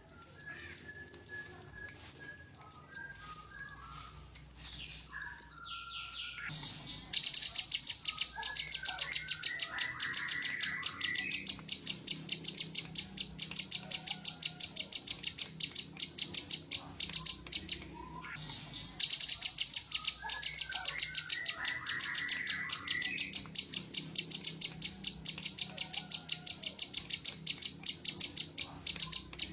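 Cucak jenggot and kinoi song layered as a songbird tutor recording. A thin, high trill with soft chirped phrases below it gives way after about six seconds to a much louder, shrill, rapidly pulsing buzzing trill. That trill stops for a moment past the middle, then resumes.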